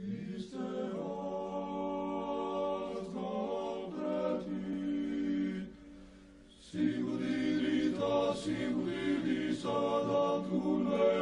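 A choir singing unaccompanied church chant in long, held chords. It breaks off for about a second near the middle, then comes back in.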